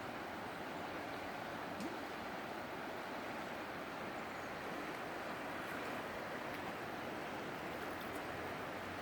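Steady rushing of the flooded Umpqua River, an even hiss of high, fast-moving water.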